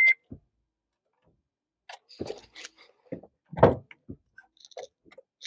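A scattered series of short knocks and clicks of something being handled inside a car cabin, the loudest about three and a half seconds in.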